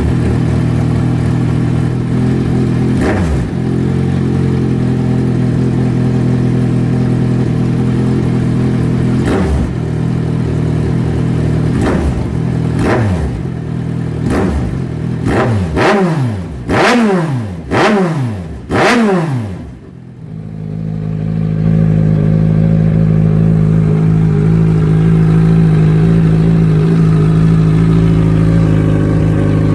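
Kawasaki Z1000 inline-four motorcycle exhaust idling, with single throttle blips twice. Then comes a quick run of about eight sharp revs that climb and fall back. After a brief drop it settles into a steady, deep idle.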